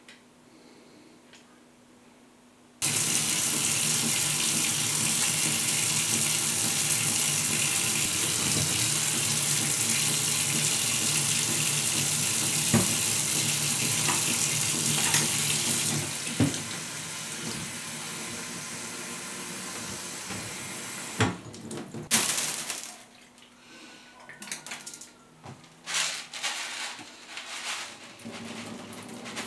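A faucet turned on about three seconds in, running water steadily into a plastic coolant expansion tank held under it in a sink; the sound drops in level about halfway through and stops near the three-quarter mark. Then come scattered light rustles and patters as rice is poured from a box into the tank.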